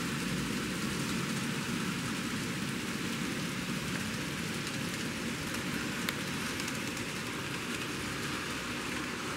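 An N-scale model coal train, its hopper cars and caboose rolling on Kato track, making a steady fine rattle of small wheels on the rails with an occasional faint click.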